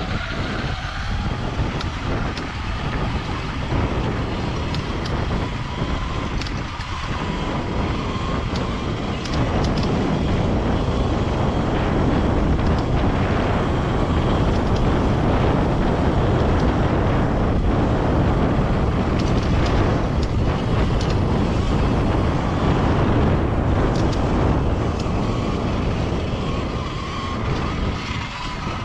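Wind buffeting the microphone and tyres rolling over a loose dirt and gravel trail as an electric dirt bike rides along, growing louder through the middle as speed picks up. A faint steady whine sits under the noise near the start and near the end.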